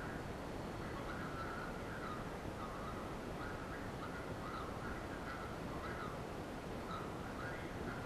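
Steady hiss and noise of an old videotape soundtrack, with faint, indistinct sounds coming and going in it.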